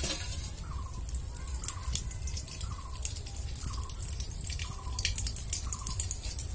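A drip-like plink repeating roughly twice a second, with faint crackles and a low rumble underneath.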